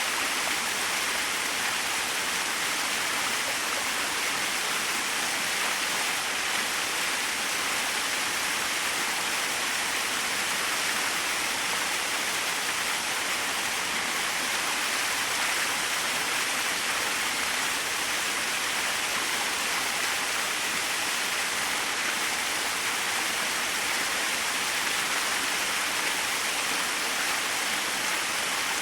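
Small waterfall splashing, a steady, even rush of falling water with no change.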